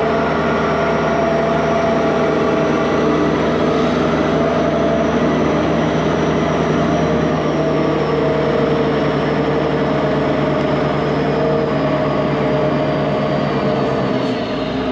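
Heavy truck's diesel engine running steadily while hauling a loaded dump trailer of chopped corn, with a faint high whine that slowly falls in pitch. The engine note drops near the end.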